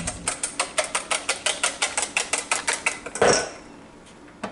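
Eggs being beaten in a bowl with a utensil: a quick, even clatter of about seven clicks a second for some three seconds, ending in a short scraping rush.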